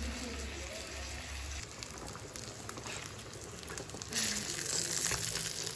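Pork frying in oil in a stainless steel pan: a steady sizzle that becomes louder and brighter about four seconds in, with a few light clicks.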